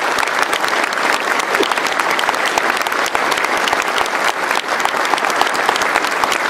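A large indoor crowd applauding steadily, dense clapping throughout.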